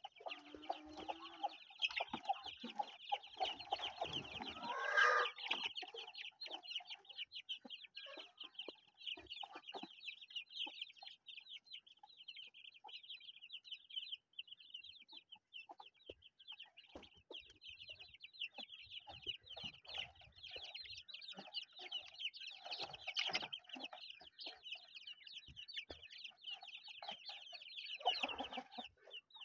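A brood of young chickens peeping constantly in rapid, high little calls, with a lower clucking from older chickens coming in at times.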